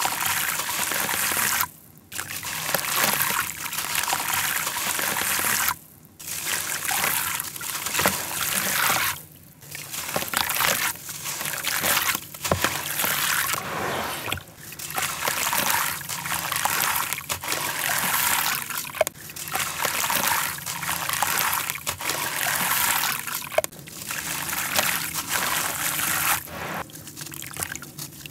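Soaked red dirt chunks squeezed and crumbled by hand in a tub of water, with gritty crumbling and water trickling, dribbling and sloshing back into the tub. The sound comes in irregular bursts with short pauses.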